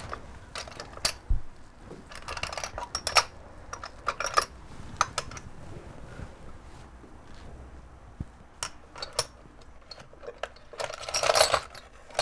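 Small metal objects clinking and rattling in a small box as a hand sorts through them: scattered clicks and jingles, with a louder burst of rattling near the end.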